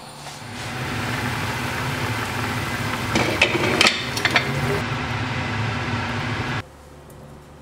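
Water at a rolling boil in a pot of meat being blanched, a steady bubbling hiss with a few light knocks of utensils in the middle; it cuts off abruptly near the end.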